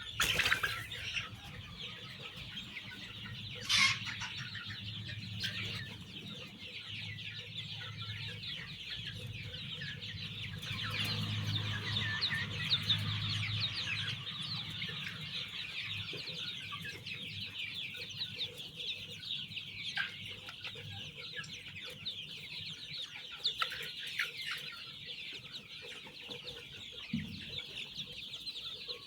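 A large flock of young chicks peeping all at once: a dense, continuous chorus of high chirps, with two brief louder bursts near the start and a low hum under the first half.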